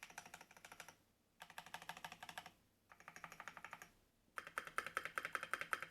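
Typing on a Monstargear XO V3 mechanical keyboard with lubed, filmed Paco switches, a brass plate and MT3 keycaps: four quick runs of keystrokes with short pauses between them, the last run the longest and loudest.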